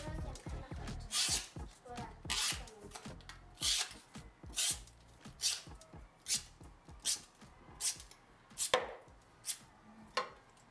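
A freshly sharpened knife slicing pieces off thin cardboard: about a dozen short cuts, roughly one a second, testing the edge's sharpness.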